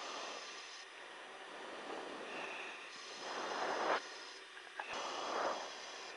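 Aviation radio channel open between transmissions: a steady hiss with its upper part cutting in and out, and two louder breathy rushes of noise, one about three seconds in and one about five seconds in.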